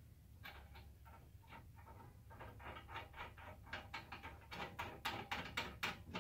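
Faint, irregular metal clicks and scrapes from an M6 screw and nut being fitted by hand into a steel rack rail, busier over the last second or two.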